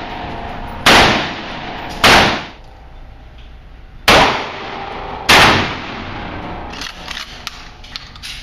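Four single gunshots at an indoor shooting range, each ringing off the walls, in two pairs about a second apart. A run of lighter clicks and clinks follows near the end.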